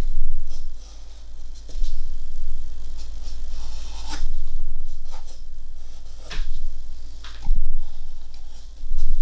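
Soft graphite pencil tracing lines over paper: irregular scratchy strokes of lead dragging across the sheet, over a steady low hum.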